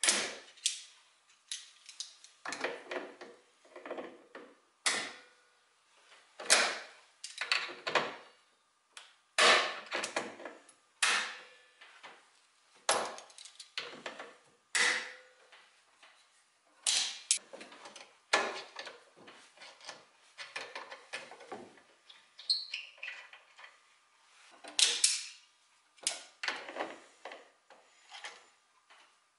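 Old nails being twisted and worked out of a wooden chair rail with locking pliers: a run of irregular creaks and scrapes, roughly one a second, as the metal grinds against the wood.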